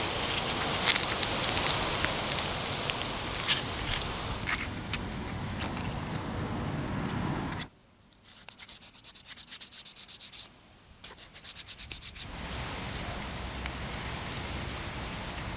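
Aluminium foil crinkling and crackling with many sharp clicks as it is peeled off a small wrapped form by hand. About seven seconds in, it cuts to quieter quick rubbing strokes, about five a second, as a stick is rubbed over the smooth piece. Then comes a steady hiss with a few light clicks as thin brass strips are handled.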